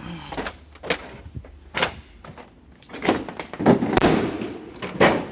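A series of loud knocks and bangs, with a denser clatter of impacts about three to four seconds in.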